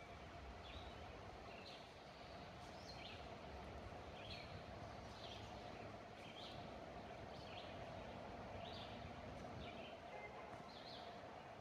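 A bird calling over and over, short high calls about once a second, faint against the outdoor background.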